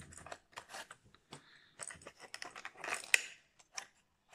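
Clear plastic lure case and cardboard sleeve handled and opened: a run of small clicks, taps and crinkles, with a louder crinkling rustle about three seconds in.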